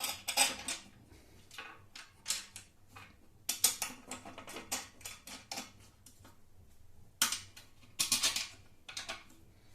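Metal parts of a router table being handled and fitted: irregular clatter, knocks and short scrapes, in clusters, with the loudest bursts about 3.5 s, 7 s and 8 s in.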